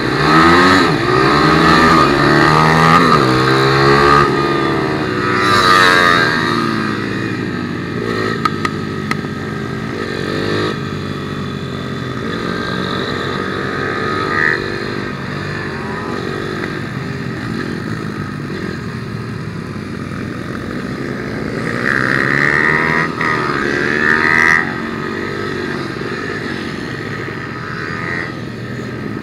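Onboard sound of a 160cc single-cylinder four-stroke pit bike engine at racing speed, its pitch sweeping up again and again as it accelerates through the gears and dropping back off the throttle into corners. It is loudest on the hard acceleration at the start and again a little over twenty seconds in.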